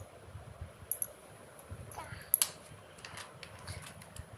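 Soft clicks and taps of a crayon being worked on paper over quiet room noise, the sharpest click about two and a half seconds in.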